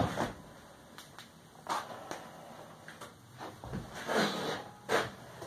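Scattered knocks and clatter of an angle grinder and its cord being handled on a wooden workbench, the sharpest knock right at the start and more around the middle and near the end; the grinder is not running.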